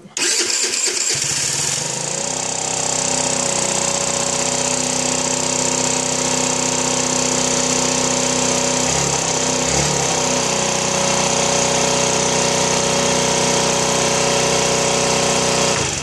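Chinese 49cc scooter engine turned over on its electric starter. It catches after about two seconds and settles into a steady idle. It starts because the failed CDI box that had left it with no spark has been replaced.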